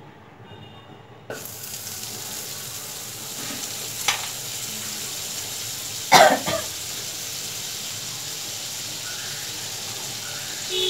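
Butter sizzling steadily as it melts in a hot nonstick kadai, the hiss starting suddenly just over a second in. A short cough about six seconds in is the loudest sound, with a sharp click a little before it.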